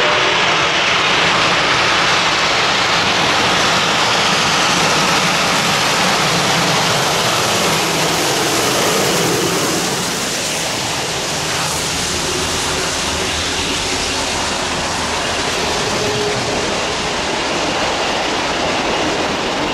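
Reading & Northern No. 425, a Baldwin 4-6-2 Pacific steam locomotive, running past at speed with its exhaust and running gear loud, followed about halfway through by trailing diesel units and then passenger coaches rolling by, wheels clattering on the rails.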